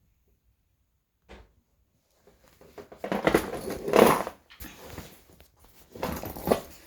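Soft leather handbag being handled close to the microphone: irregular rustling and rubbing, loudest about three to four seconds in and again near the end, after a quiet start and a single soft tap.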